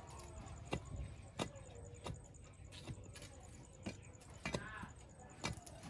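A series of sharp knocks, one every second or so, over a low background, with a short pitched call about four and a half seconds in.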